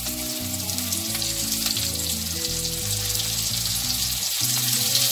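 Small chanda fish sizzling in hot mustard oil with fried onions in an iron kadai, just added to the pan. A low background tune plays underneath.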